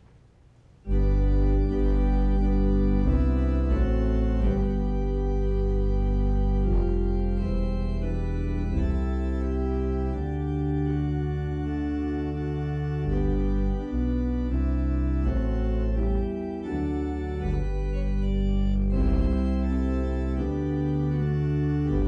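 Organ music for the offertory, starting suddenly about a second in: held chords over a deep bass, changing every second or two.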